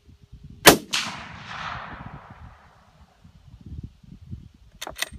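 A single shot from a .300 WSM Browning A-Bolt hunting rifle fitted with a muzzle brake, fired under a second in. Its loud report echoes away over about two seconds. Two sharp clicks follow near the end.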